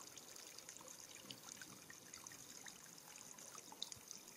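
Near silence: a faint steady hiss with a few soft ticks.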